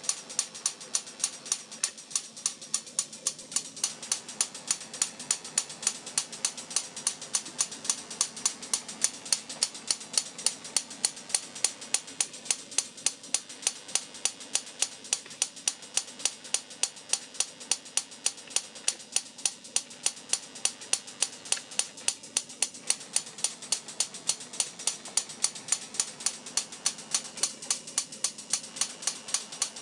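High-voltage spark gap in an experimental installation, firing in a steady run of sharp snapping clicks, about three to four a second, over a faint hiss: the capacitor charges and discharges through the gap over and over.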